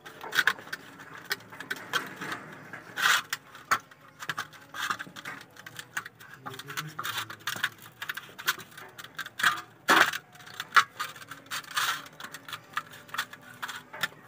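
A large kitchen knife scoring raw chicken legs on a steel platter: irregular scrapes and clicks of the blade against the metal, with a few louder knocks.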